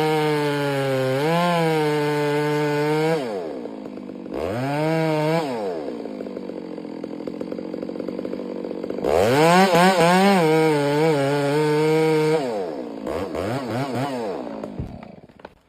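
Chainsaw running at high revs, its throttle let off about three seconds in. It gives a short rev, drops to a low idle, then is back at full throttle from about nine seconds until it winds down and fades near the end.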